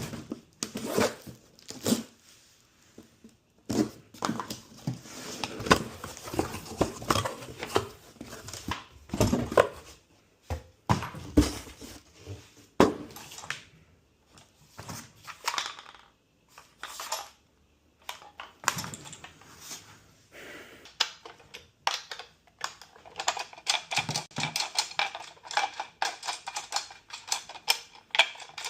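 Unboxing by hand: irregular knocks, thunks and rustling of cardboard and packaging. The rustling grows denser near the end.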